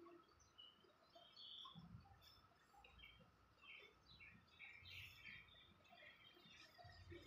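Near silence, with faint scattered bird chirps and a few soft low thumps.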